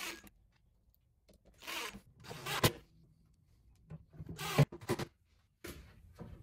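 Cordless drill/driver run in several short spurts, driving small screws into concealed cabinet hinges, with a sharp click about two and a half seconds in.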